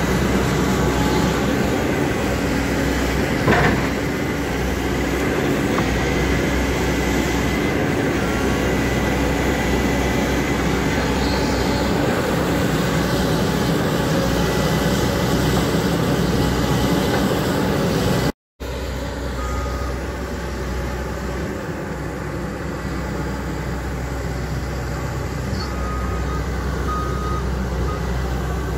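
JCB JS220LC hydraulic crawler excavator running steadily while digging a trench, its engine and hydraulics working under load, with a single brief knock about three and a half seconds in. After a short break the excavator is heard running again, a little quieter.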